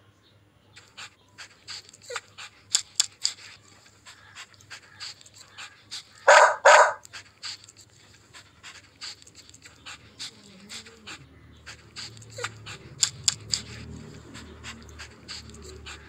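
Dog panting in quick short breaths, with two loud barks in quick succession a little over six seconds in.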